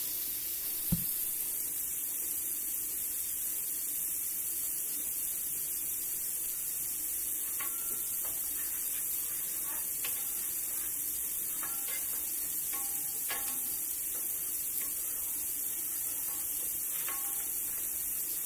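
Food sizzling in a pot on the stove as a steady hiss, with a sharp knock about a second in and light metal clinks of a utensil against the pot from several seconds in, as the food is stirred.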